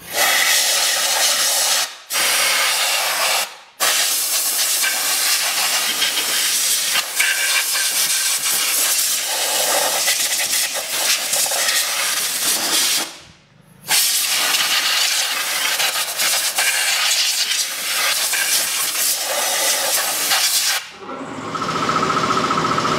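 Compressed-air blow gun blasting air into a Land Rover Discovery 4's air filter housing to blow out dirt: a loud, steady hiss, cut off briefly three times as the trigger is released. Near the end the hiss stops and a steady buzzing hum takes over.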